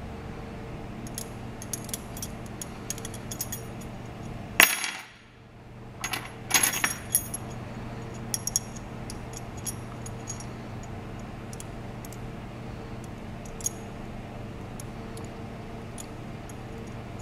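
Small metal puzzle pieces clicking and clinking against each other as they are twisted by hand. A sharper clink comes about four and a half seconds in, and a quick run of clinks follows a second or two later.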